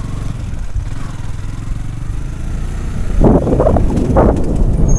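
Motorcycle engine running as it is ridden, getting louder and rougher about three seconds in.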